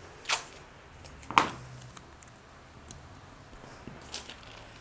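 Paper pattern pieces being handled on a cutting mat: two short rustles of paper, about a third of a second and a second and a half in, then a few faint taps near the end.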